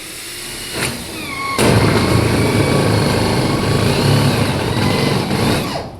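A loud motor-driven machine running with a high whine, building up at first and then coming in much louder and harsher about a second and a half in, before dropping away near the end.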